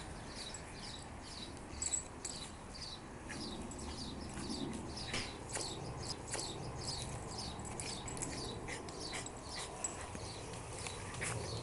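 A dog rolling and wriggling on its back on a towel and grass to dry itself. Throughout, there is a quick series of short, high, falling chirps, about two or three a second.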